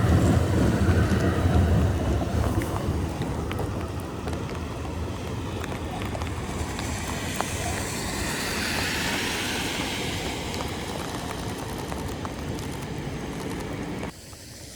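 Rain and traffic on a wet city street: a vehicle's low rumble that fades over the first few seconds, then a steady hiss of rain and tyres on wet road. The sound drops abruptly near the end.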